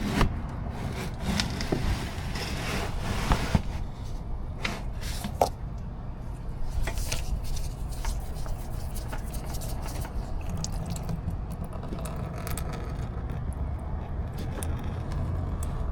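Hand work on oil-change parts under a car: scraping and rubbing with scattered light metallic clicks, busiest in the first few seconds, then sparser, over a low steady hum.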